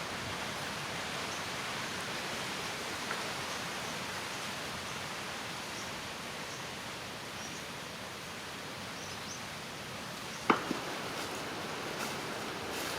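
Steady outdoor background hiss with a few faint, short high chirps, and one sharp knock about ten and a half seconds in.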